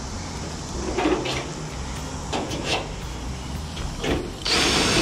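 A few light clicks and taps of tools and clecos on the aluminium tail skin. Near the end a cordless drill starts up against the skin with a high whine and runs for about a second.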